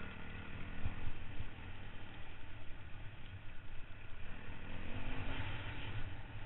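Off-road motorcycle engine running steadily, with a slight rise in pitch about five seconds in.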